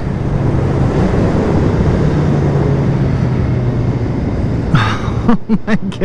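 Loud wind noise rushing around a motorcycle helmet at highway speed, over a steady drone from the Suzuki Hayabusa's inline-four engine. The wind noise stays loud even with a NOJ Quiet Rider skirt sealing the bottom of the helmet.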